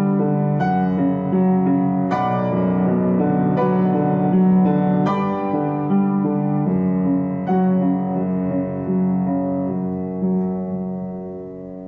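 Background piano music: slow struck notes over held chords, growing quieter near the end.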